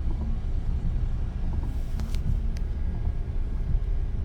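Steady low rumble of road traffic in heavy rain, with two faint clicks about two seconds in.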